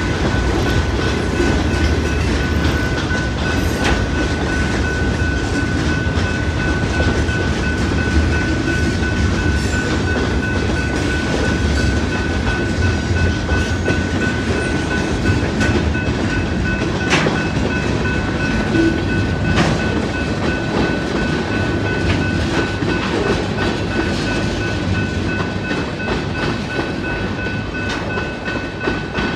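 Freight train cars rolling past at a grade crossing: a steady low rumble with the clickety-clack of wheels over rail joints and a few sharp clanks. A steady high ringing tone runs over it, the crossing's warning bell. The sound eases slightly near the end as the last car passes.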